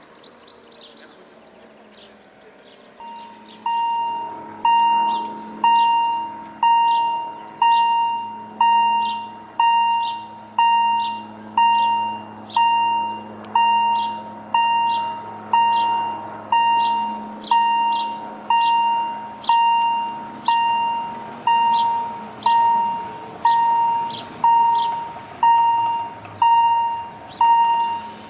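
Railway level crossing warning bell striking about once a second, each stroke ringing out and fading before the next. It starts about three to four seconds in and signals that the barriers are closing for an approaching train.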